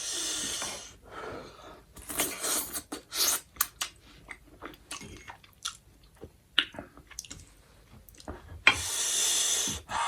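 Close-miked chewing of spicy instant noodles, with short wet mouth clicks and smacks. There are two long airy sucks of about a second each through the mouth, one at the start and one near the end.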